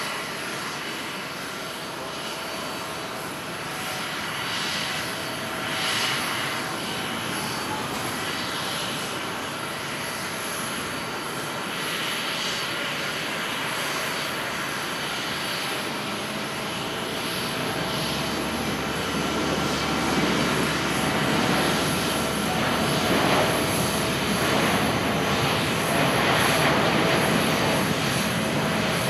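Boeing 787-8's Rolls-Royce Trent 1000 turbofans at takeoff power during the takeoff roll. The jet noise is steady at first, then grows louder and deeper over the second half as the airliner accelerates down the runway.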